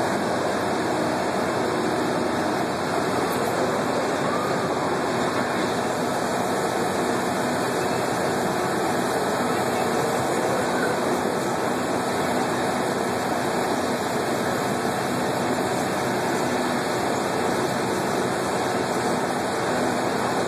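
Steady, even rushing din of fairground background noise, running ride machinery and crowd blended, with no breaks or distinct events.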